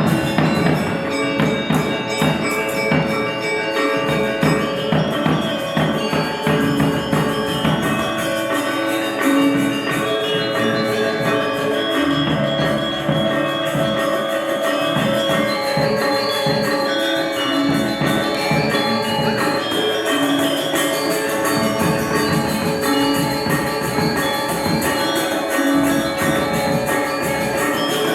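A Balinese gamelan gong ensemble playing continuously: bronze metallophones and gongs ring in dense, overlapping patterns, with steady drum strokes beneath.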